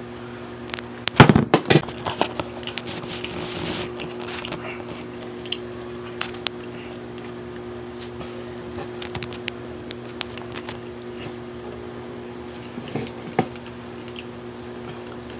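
Eating noises: a cluster of sharp clicks and knocks a little over a second in, then scattered small clicks and smacks of eating pork hock, over a steady low hum.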